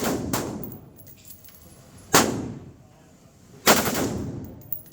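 HK UMP submachine gun in .40 S&W fired on full auto in short bursts of two or three shots: one burst at the start, a shot about two seconds in and another burst near the end, each with a ringing echo tail.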